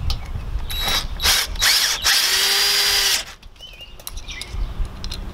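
Cordless drill driving a self-tapping screw into the steel trailer frame: a few sharp clicks, then about a second of the drill running hard with a whine over a loud grinding rattle, stopping suddenly.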